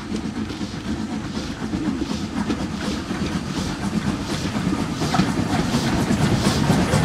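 LNER K4 class 2-6-0 three-cylinder steam locomotive working hard with a goods train, its exhaust beating in a steady rhythm over the rumble of wheels and wagons. It grows louder as it approaches.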